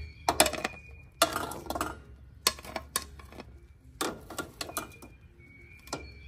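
Kitchen tongs clacking and clinking against a plate and the Omnia oven's pan as cooked food is lifted out and set down, a string of irregular clinks over a low steady hum.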